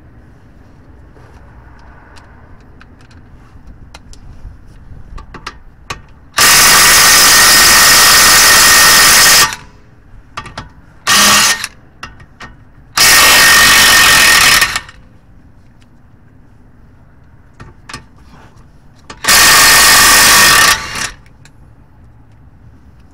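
DeWalt cordless impact wrench hammering on the front suspension bolts of a Toyota Sienna, loosening them to free the CV axle. Four loud bursts: a long one of about three seconds, a short blip, a second long one and a last burst near the end, with small clinks of the socket and tools between them.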